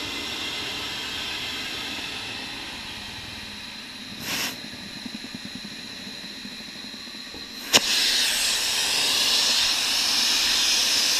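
Compressed air hissing through a tire chuck on the valve stem as a tire is inflated. There is a short extra burst of hiss about 4 seconds in, then a sharp snap near 8 seconds, after which the hiss is louder.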